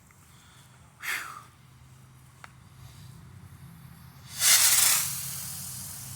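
Small firework rocket launching: a brief hiss about a second in, then a loud rushing hiss as the rocket takes off, trailing away over the following second or two.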